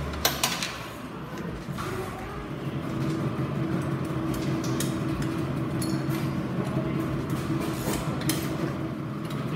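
Hand tools clinking and knocking against motorcycle parts during maintenance, scattered metallic clicks over a steady low workshop hum.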